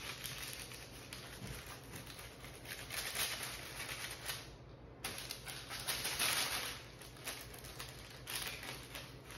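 A spatula scraping and sliding under baked cauliflower taco shells on a parchment-lined sheet pan, the parchment rustling in several short spells. The shells are sticking to parchment that was not sprayed.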